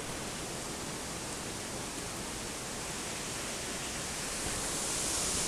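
Waterfall rushing: a steady, even hiss of falling water that grows a little louder near the end.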